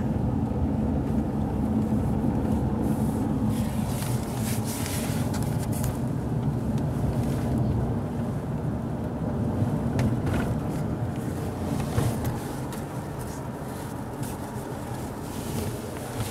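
Steady low rumble of a car running on the road, with a few faint clicks; it eases off slightly about twelve seconds in.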